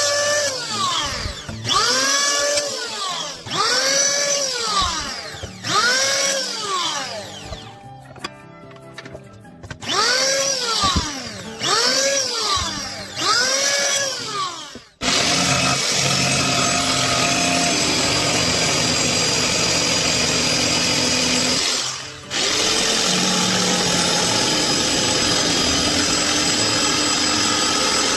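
Electric hand planer shaving a board, its motor whine rising and falling in pitch with each pass, roughly every two seconds. About halfway through, a power tool runs steadily and cuts out briefly once.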